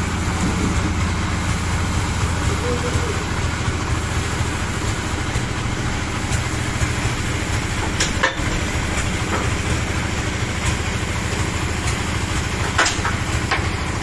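Log-carriage bandsaw mill running steadily with a constant low hum, and a few sharp metal knocks about two-thirds of the way in and near the end as the carriage is worked.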